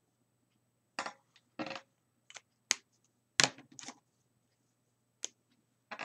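Copic alcohol markers being handled: a string of short plastic clicks and clatters, caps snapping and markers set down and picked up, the loudest click about three and a half seconds in.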